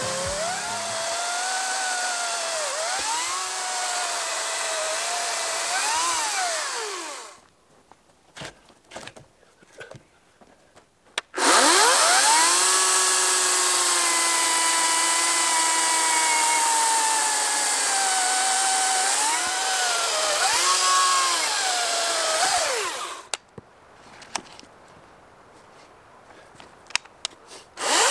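Ryobi 40V HP brushless battery chainsaw cutting through a log. Its electric whine drops in pitch as the chain bites and climbs again as the load eases. It stops about seven seconds in, starts abruptly again around eleven seconds for a long cut, stops near twenty-three seconds, and starts once more at the very end.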